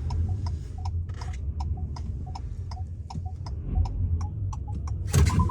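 Low steady hum of an idling delivery vehicle, heard inside the cab, with sharp regular ticking at about four clicks a second over it. A louder knock comes near the end.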